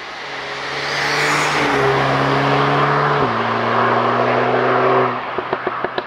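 MTM-tuned Audi S3 8Y's turbocharged 2.0-litre four-cylinder accelerating hard under full throttle, with the pitch dropping at an upshift about three seconds in before climbing again. The engine note cuts off about five seconds in as the throttle closes, followed by a string of about six sharp exhaust pops.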